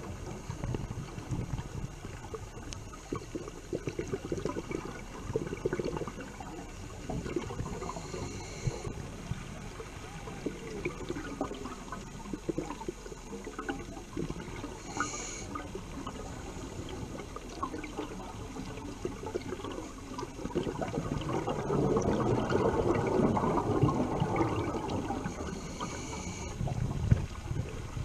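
Underwater noise on a scuba dive: steady crackling water noise with short hisses every several seconds, typical of a diver breathing through a regulator. A louder rush of bubbles comes from about 21 to 26 seconds in, like a diver exhaling.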